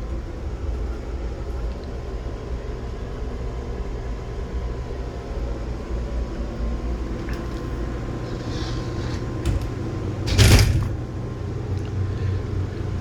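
Steady low mechanical rumble with a faint steady hum. About ten and a half seconds in comes one loud, brief rushing knock.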